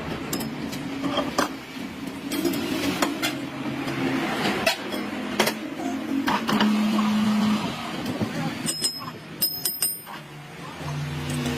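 Workshop machinery running with a steady hum that shifts pitch in steps, with scattered metal clicks and knocks and a brief high ringing about nine seconds in.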